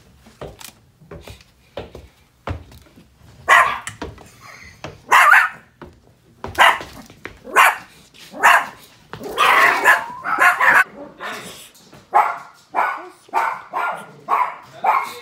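Small dog barking over and over in short, sharp barks, bunched close together around the middle and then a steady run of about two barks a second near the end.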